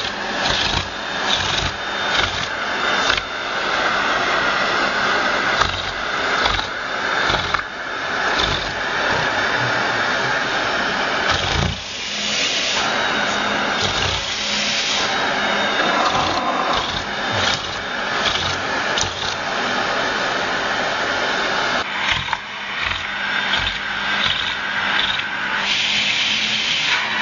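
Vacuum cleaner running steadily, its hose nozzle held against a cat's fur and face, so the suction rush wavers and dips as the nozzle moves and is partly blocked.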